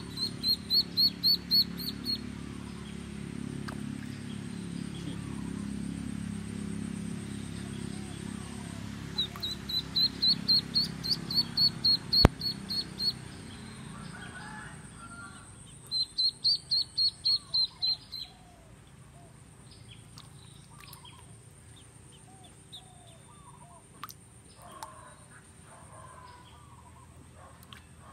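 A live duckling dangled on a fishing line as bait, peeping in distress. It gives three runs of rapid, loud, high-pitched peeps, about four a second: at the start, around ten seconds in, and again around sixteen seconds in. A single sharp click comes about twelve seconds in.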